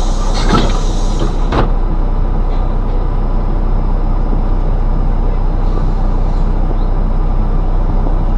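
Steady loud rumble of a moving vehicle, with two sharp knocks in the first two seconds.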